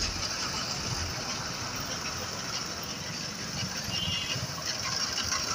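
Road traffic noise: the engines of a stalled queue of buses and trucks idling, as a steady low engine rumble.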